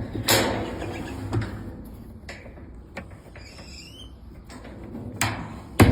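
Knocks and clatter of a washing machine's new suspension shock absorber being fitted into place by hand. A clatter comes just after the start, then a few light knocks, and two sharp knocks near the end.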